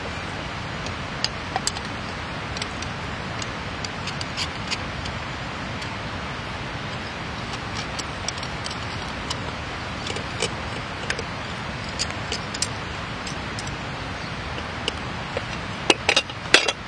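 Wood campfire crackling: irregular sharp pops and snaps over a steady hiss, with a few louder pops near the end.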